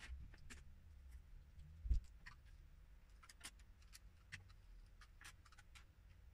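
Small plastic LEGO pieces clicking as they are handled and snapped together, a scattered run of faint ticks, with a dull thump about two seconds in.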